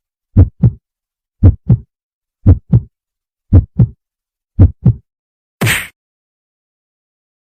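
Heartbeat sound effect: deep double thumps, lub-dub, about once a second, five beats in a row. A short hiss follows a little later, then silence.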